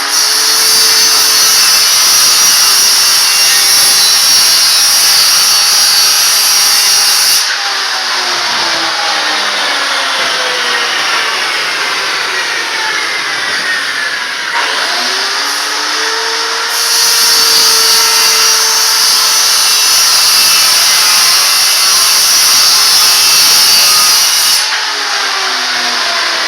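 Corded circular saw (skill saw) running loud while ripping a floating-floor board lengthwise. A bright, hissing cut sound comes in two long spells. Between them the motor's pitch drops and then climbs back up, and it sags again near the end.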